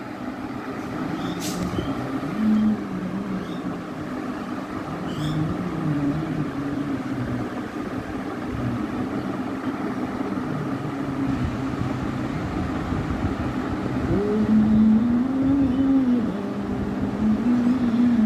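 A motor vehicle engine running, its pitch rising and falling, louder near the end.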